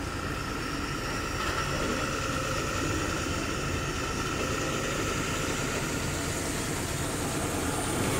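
Tata heavy truck's diesel engine running steadily on the move, heard from inside the cab with road noise, and a faint steady whine from about a second and a half in.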